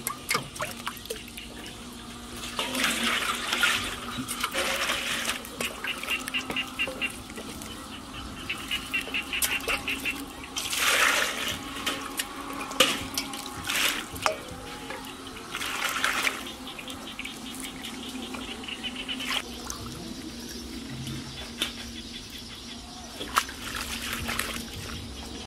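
Water splashing and sloshing in a stainless-steel basin as leafy greens are swished and rinsed by hand, in several separate bursts.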